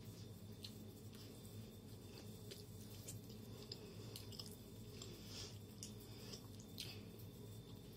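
Faint close-up chewing and mouth sounds of a person eating, with scattered small clicks and ticks over a steady low hum.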